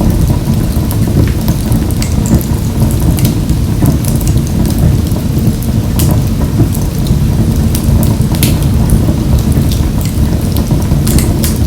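Wood fire burning in a wood-burning stove: a steady low rumble of flames with frequent sharp crackles and pops.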